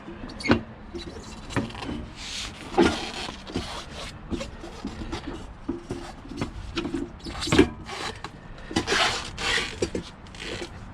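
A tire being levered off its rim by hand with a pry bar: scraping rubs of the tool and rubber bead against the wheel, broken by several sharp knocks, the loudest about three quarters of the way through.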